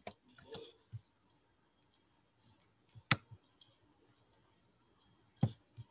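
A few sharp clicks from a computer mouse and keyboard as a number is entered, with the loudest click about three seconds in and another near the end.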